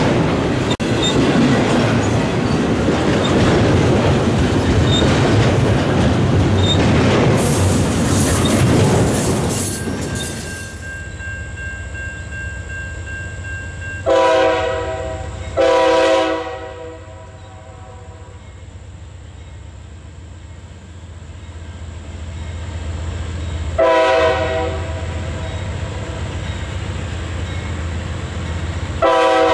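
Double-stack intermodal freight cars rolling past close by, with wheel clatter and heavy rumble. This gives way to an approaching CSX freight train, led by a GE C40-9W locomotive, sounding its multi-chime air horn over a low engine rumble: long, long, short, then a fourth blast starting near the end. This is the standard grade-crossing horn pattern.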